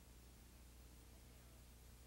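Near silence: a low steady hum with faint hiss underneath.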